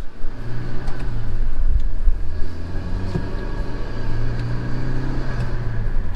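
Hyundai Veloster Turbo's freshly swapped 1.6-litre turbocharged four-cylinder engine running as the car drives, heard from inside the cabin: a steady low drone whose pitch rises in the second half as it pulls.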